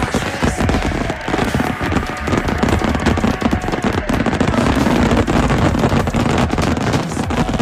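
Fireworks going off in a rapid, dense barrage of bangs and crackles.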